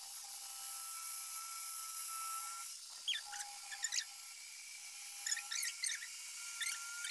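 Lanmax electric round-knife fabric cutting machine running with a steady high whine as its spinning circular blade cuts through layered fabric. A few short, high squeaks come over the second half.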